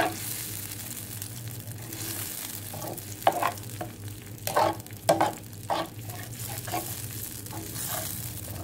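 Blended chilli sambal sizzling in oil in a nonstick frying pan while a spatula stirs it, scraping across the pan in irregular strokes, with a few louder scrapes in the middle. The paste is frying down, being stirred until it comes to the boil.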